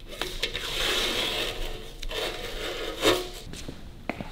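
Scraping and rubbing against the sidecar wheel's metal mudguard, about a second and a half of rasping at first, then shorter scrapes, with a couple of small clicks near the end.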